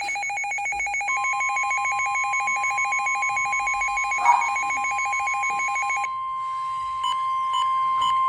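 NOAA Weather Radio sounding a warning alert. The receiver's rapidly pulsing two-pitch alarm runs until about six seconds in. From about a second in, the broadcast's long steady warning tone plays under it and carries on alone after the alarm stops. A brief thump comes about four seconds in, and three short beeps about half a second apart come near the end.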